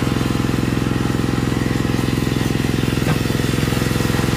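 Engine powering a rebar cutting machine, running steadily with a fast, even pulse.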